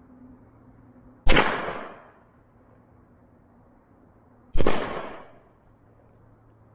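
Two single gunshots about three seconds apart, each followed by a short fading echo.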